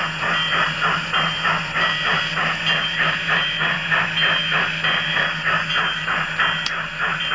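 A Phoenix sound system plays a steam locomotive's bell ringing over steady chuffing, about four chuffs a second, heard through its loudspeaker.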